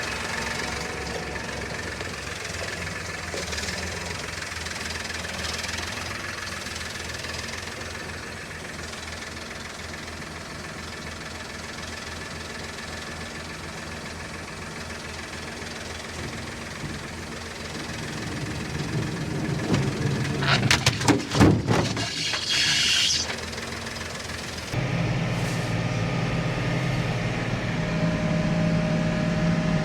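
Tractor engine running steadily. A burst of sharp clattering knocks comes about two-thirds of the way through, and the engine sound changes abruptly shortly after.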